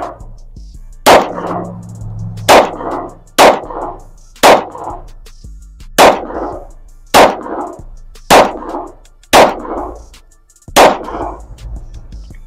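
Nine shots from a PSA Micro Dagger 9mm pistol, fired about one a second in slow aimed fire. Each shot is a sharp crack trailing off in echo.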